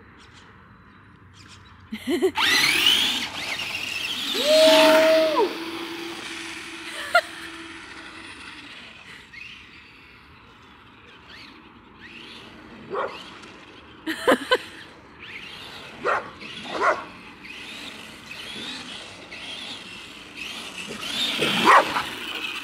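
Electric motor of a Traxxas Rustler 4x4 RC car whining up in pitch as it accelerates away, with a dog barking a few times midway and the motor whining again near the end.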